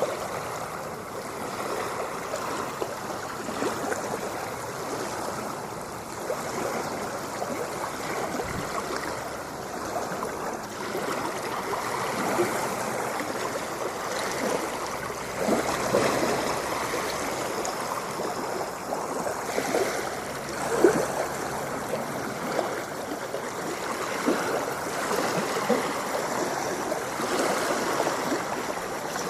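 Ocean water washing and gurgling in a continuous rush, with small splashes and slow swells in level; the sharpest splash comes about 21 seconds in.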